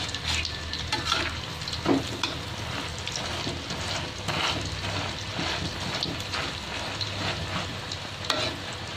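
Cabbage-and-egg omelette sizzling and crackling as it fries in hot oil in a wok, with a metal spatula scraping and knocking against the pan now and then; a sharper knock about two seconds in.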